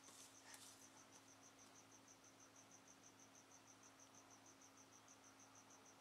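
Near silence: a cricket's faint, high chirp repeating evenly about five times a second, over a low, steady electrical hum.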